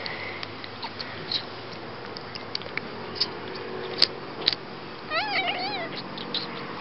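Kitten suckling at a feeding bottle with soft, irregular wet clicks, and a short wavering mew about five seconds in.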